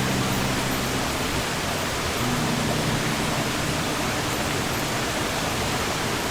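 Steady rushing sea-surf noise with no distinct wave surges. A few low acoustic guitar notes ring faintly under it: one dying away in the first second, and another about two seconds in.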